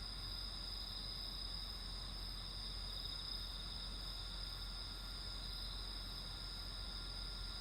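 Night insects such as crickets singing as a steady, unbroken high-pitched chorus of trills.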